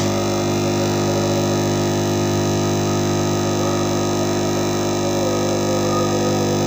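Steady electrical hum over a hiss, typical of a hot-air rework station running while a surface-mount audio amplifier IC is heated off a circuit board.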